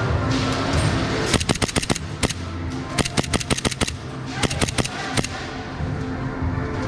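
Full-auto gas blowback Hi-Capa airsoft pistol firing three rapid bursts of about ten shots a second.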